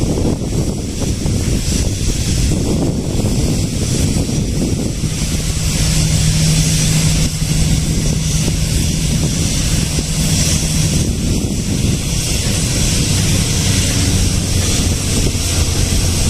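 Wind buffeting the microphone over a low engine rumble. A steady low drone comes in about a third of the way through and holds for several seconds, and a lower drone follows near the end.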